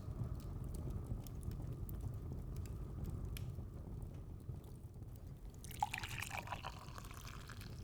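Hot tea poured from a kettle into a mug for a second or two, starting about six seconds in with a small clink, over a steady low rumble.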